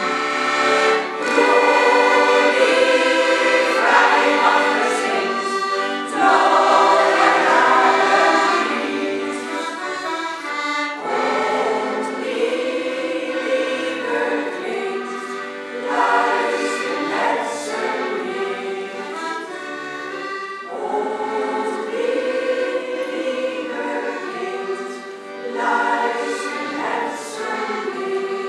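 Women's choir singing a slow song in several parts, accompanied by accordion.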